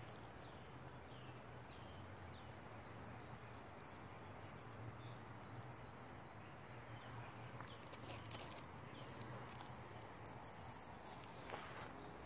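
Quiet outdoor ambience: a faint steady low hum with a few scattered, distant bird chirps.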